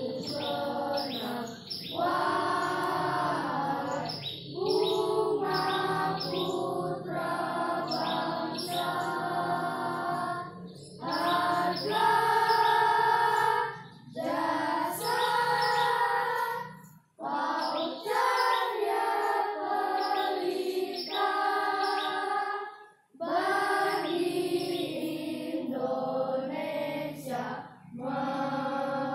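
A choir of schoolchildren singing a song together, phrase by phrase with short breaths between the lines.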